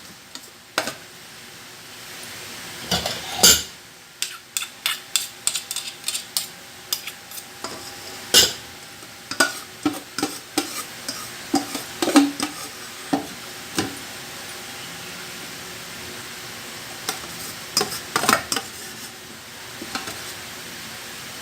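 Banana leaves crackling and rustling as a pepes packet is folded and wrapped by hand, a rapid series of sharp crinkles and clicks that thins out and pauses partway through.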